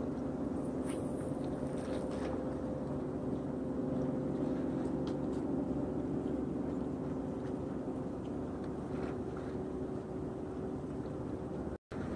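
Steady hum of a boat's engine running, several low tones held evenly throughout. The sound drops out completely for a moment near the end.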